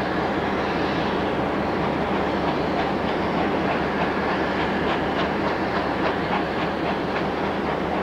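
Victorian Railways R class 4-6-4 steam locomotive R766 and its carriages rolling past in a steady noise, with wheels clicking over rail joints and points from about three seconds in.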